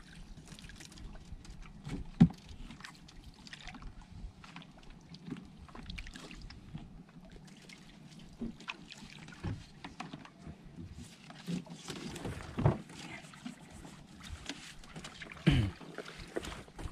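Water dripping and splashing around a small fishing boat as a longline is pulled in by hand, with small irregular clicks and a few sharp knocks against the boat, the loudest about two seconds in and two more near the end.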